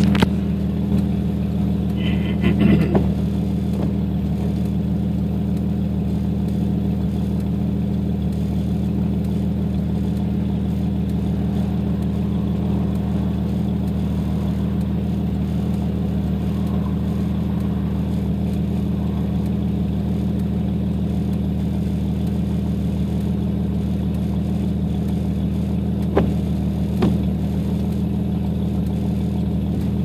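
1992 Jeep Cherokee XJ's 4.0-litre inline-six idling steadily at one pitch, heard inside the cab through a 2.5-inch straight pipe from the catalytic converter back, with no muffler. A couple of light knocks come near the end.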